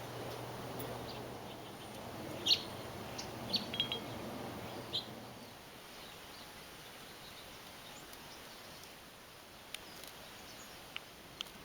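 Birds chirping a few short, high calls over steady low outdoor background noise, which drops away about five and a half seconds in; a few faint sharp ticks near the end.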